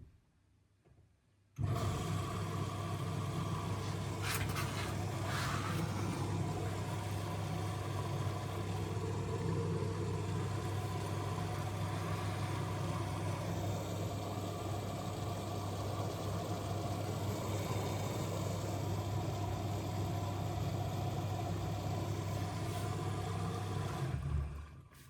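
Miele W1 washing machine running with a steady low hum that switches on abruptly about a second and a half in and cuts off near the end, with two brief rustles a few seconds in.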